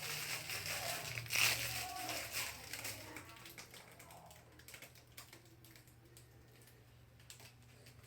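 Rustling and light clicks of objects being handled, busiest in the first three seconds and then dying down to a few faint ticks, over a low steady hum.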